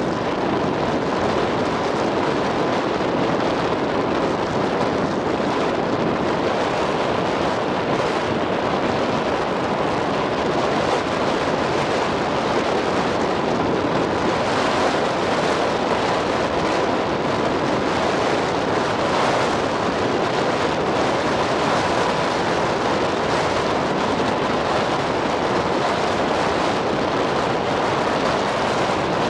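Steady rush of wind and water heard from a small boat under way, with a faint steady whine throughout.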